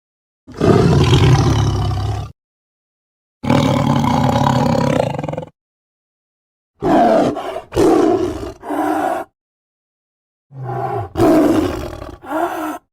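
Cartoon gorilla vocal sound effects: two long roars of about two seconds each, then two clusters of shorter roars and grunts in quick succession, each clip cut off into dead silence.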